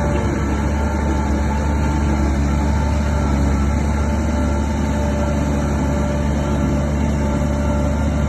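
Shantui DH17 bulldozer's diesel engine running steadily, a deep even drone with faint higher whines coming and going over it.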